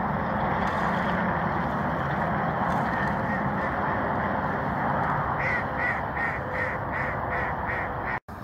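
Steady rushing background noise. About two-thirds of the way through, a bird gives a quick, evenly spaced series of about eight short calls, roughly three a second.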